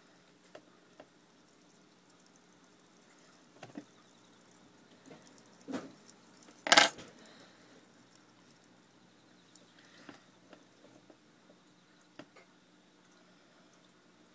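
Scattered light clicks and taps from hand-feeding a cricket with metal tweezers at a gecko's hide, with one sharp, loud knock about seven seconds in and a smaller tap a second before it.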